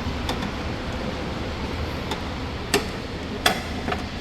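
A handful of sharp plastic clicks and knocks, loudest about two thirds of the way in and near the end, from the truck's plastic front grille and its clips being handled and fitted back in place, over a steady hum.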